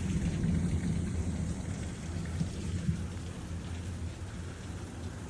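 Thunder rumbling low and slowly fading away over steady rain during a severe thunderstorm.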